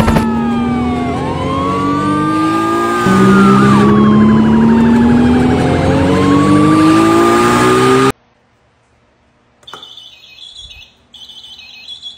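Loud siren-like wailing, its pitch sweeping up and down over and over, which cuts off abruptly about eight seconds in. Faint, short, high-pitched chirps follow near the end.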